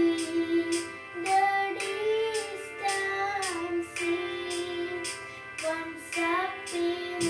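A girl singing a prayer song, holding long notes that bend and slide between pitches.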